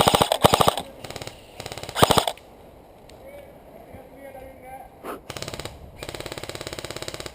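Airsoft rifles firing full-auto bursts of rapid, evenly spaced shots. The loudest, closest bursts come at the start and again about two seconds in. Fainter, longer bursts from further off follow near the end.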